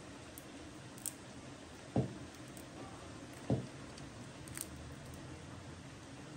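Thin-shelled almonds being cracked open by hand: a few scattered small snaps, and two louder dull knocks about two and three and a half seconds in.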